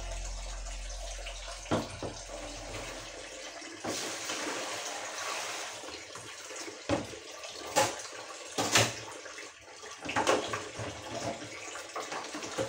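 Kitchen tap running into a sink while dishes are washed by hand, with water splashing and several sharp clatters of dishes and a plastic basin.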